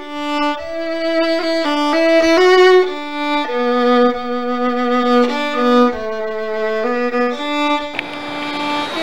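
Instrumental background music: a single melody line of slow, long-held notes.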